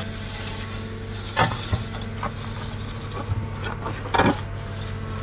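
CAT M314 wheeled excavator's diesel engine running steadily while its bucket scrapes and levels soil, with a few sharp knocks and clanks from the bucket and linkage, the loudest about a second and a half in and again about four seconds in.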